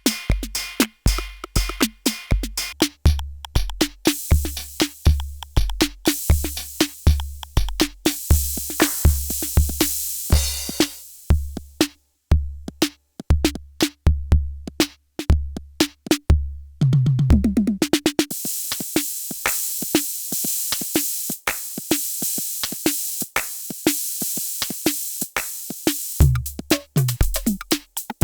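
IK Multimedia UNO Drum drum machine playing a programmed pattern of deep analog kicks and fast hi-hats. Around the middle the kick drops out, leaving hi-hats and a short pitched fill, and the kick comes back near the end.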